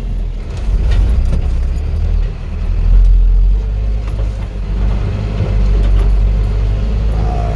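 Motor vehicle engine running with a heavy, continuous low rumble as it drives over a rough, badly rutted dirt road.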